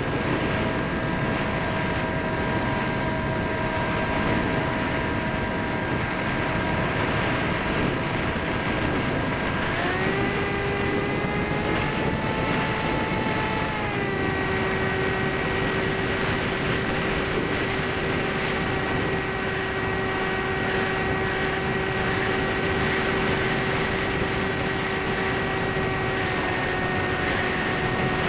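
Electric brushless motor and pusher propeller of a Skysurfer (Bixler) foam model plane, heard from the onboard keychain camera as a steady whine over constant wind rush. The whine rises in pitch about ten seconds in as the throttle changes, then holds a new steady pitch from about fourteen seconds.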